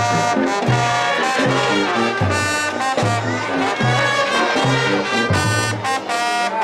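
High school marching band playing a brass-heavy tune, the horns over a low brass bass line that moves in short, rhythmic notes.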